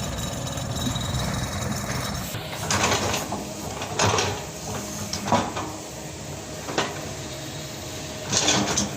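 A machine engine runs steadily at a low hum for about two seconds and then drops away. After that come five short, loud rustles or knocks, spaced about a second or more apart.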